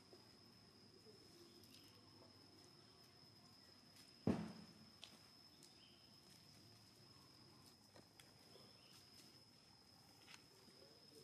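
Quiet outdoor ambience with a steady, thin, high insect drone, broken about four seconds in by one sudden low thump that dies away quickly, and a few faint clicks after it.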